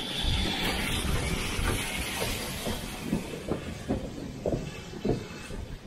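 BR Standard Class 4 tank steam locomotive 80080 arriving with its train: a steady hiss of steam, strongest in the first two seconds, then a run of knocks and clanks about twice a second as the engine and carriages roll in.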